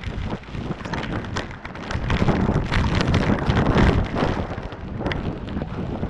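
Waterfall pouring down with spray spattering directly onto the camera's microphone: a dense rushing, splattering noise that is heaviest about two to four seconds in.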